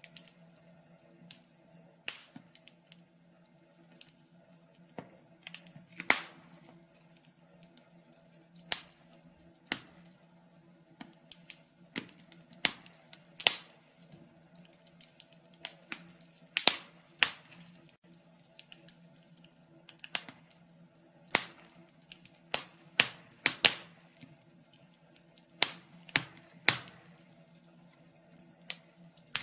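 Wood fire crackling: irregular sharp pops and snaps of burning logs, some much louder than others, over a faint steady low hum.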